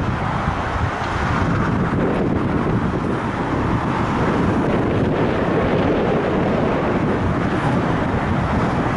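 Boeing 747 freighter's four jet engines at takeoff thrust during the takeoff roll and lift-off, a loud, steady rumble with some wind on the microphone.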